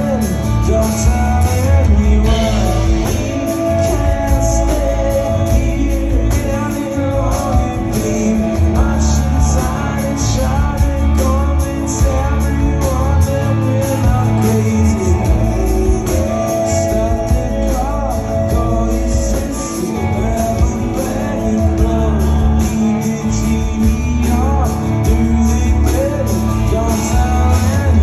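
A rock band playing live through a PA, with a steady drum beat, bass, acoustic and electric guitars, and a man singing.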